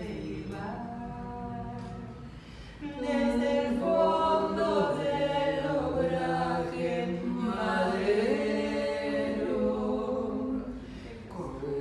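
Women's voices singing a slow Spanish-language song without accompaniment, holding long notes; the singing grows louder about three seconds in.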